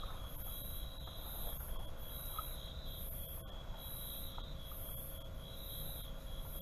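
Night insects calling: a high pulsing chirp about once a second over a faster, lower trill, with a low steady rumble underneath. A single sharp click sounds about three and a half seconds in.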